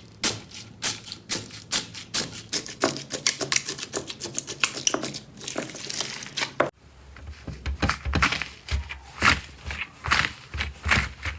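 Slime being squeezed and pressed by hand, giving a fast run of crackling clicks and pops. The sound breaks off abruptly about seven seconds in and goes on with similar crackling and heavier, duller presses.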